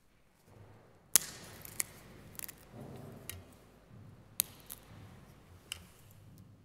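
Handling noise from objects on the altar close to the microphone: a series of sharp clicks and small knocks, the loudest about a second in, over soft low rustling.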